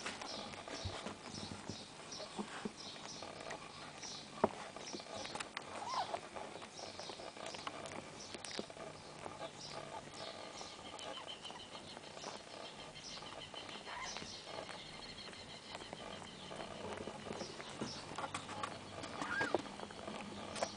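Newborn kitten mewing in many short, high, thin squeaks, repeated over and over, with a couple of lower calls and soft clicks and rustling in the nest.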